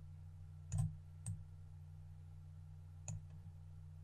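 Three short, sharp clicks of a computer mouse button: two close together about a second in and one near three seconds in. A low, steady electrical hum runs underneath.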